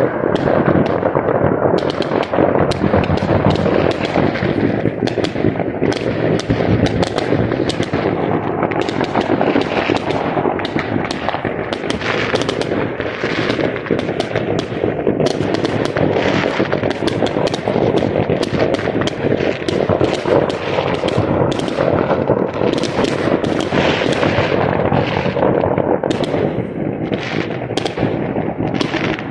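Fireworks and firecrackers going off in a dense, unbroken barrage: overlapping bangs and crackling cracks with no pause, loud booms among them.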